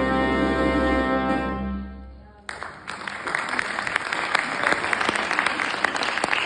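Solo trombone with trumpet and a small ensemble holding a final chord that dies away over about two seconds. Then audience applause breaks out suddenly and carries on.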